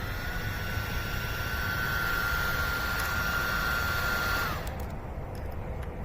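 High-speed cooling fan of the IMALENT MS18 flashlight running: a steady high whine over rushing air that cuts out about four and a half seconds in, dipping slightly in pitch as it stops.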